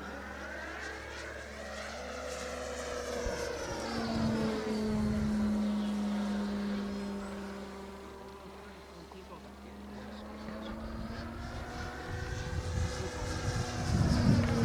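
Electric F3A pattern aerobatic RC plane (HobbyKing Viper on a 6-cell LiPo) flying, its motor and propeller whine rising and falling in pitch and loudness as it makes passes. It is loudest a third of the way in and swells again near the end.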